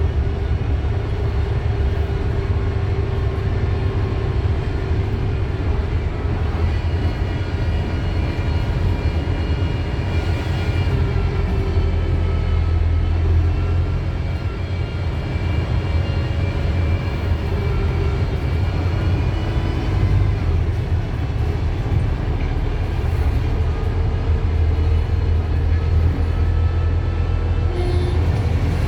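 Wright StreetDeck double-decker bus with its Mercedes-Benz OM934 diesel running, a deep steady rumble. Through the middle a faint high whine of several tones rises in pitch, holds, then falls away.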